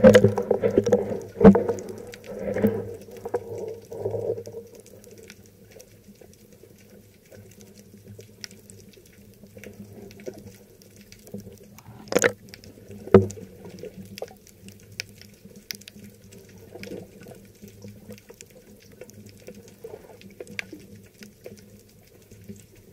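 Muffled sloshing and bubbling of seawater around a camera held underwater, louder for the first few seconds and then quieter. About halfway through come two sharp knocks, a second apart, as the camera rides at the surface.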